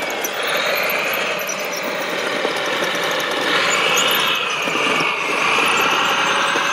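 Radio-controlled Liebherr crawler loader model running, its motors whining with a pitch that rises and falls as it drives on its tracks and works its bucket.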